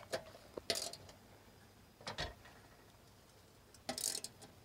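A socket ratchet clicking in short bursts as a mounting screw is tightened into a steel meter base, with a few metallic taps and scrapes of tools on the box; the loudest bursts come about a second in and near the end.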